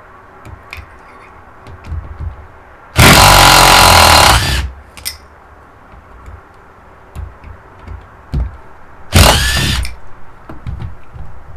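A power tool runs in two short bursts, about a second and a half each and about six seconds apart, rising in pitch as the second one starts. Light clicks and knocks of metal parts being handled come between the bursts.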